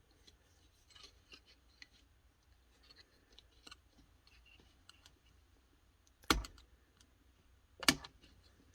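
Small clicks and light ticks of tools and small parts being handled while a VCR tape-transport mechanism is taken apart, with two sharper knocks about six and eight seconds in.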